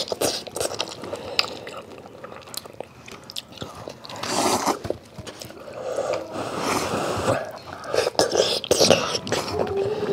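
Close-up mouth sounds of two people eating spaghetti and meatballs: chewing, with several slurps of noodles lasting about a second each, and small clicks of chopsticks and a fork against plates.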